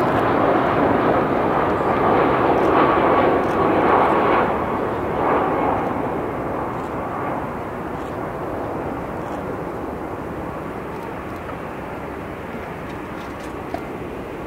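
Boeing 767-300ER jet engines on landing approach passing close by, a loud rush with a faint whine. The noise falls off after about four seconds and keeps fading steadily as the airliner moves away toward the runway.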